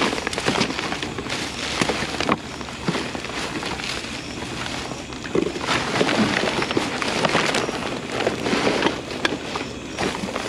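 Plastic garbage bags rustling and crinkling as gloved hands dig through trash, with a few short knocks of boxes and packages shifting. The rummaging gets busier and louder in the middle.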